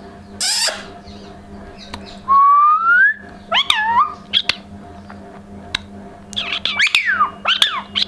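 Indian ringneck parakeet calling: a short harsh squawk, a loud rising whistle about two seconds in, then chirps and several quick falling calls near the end.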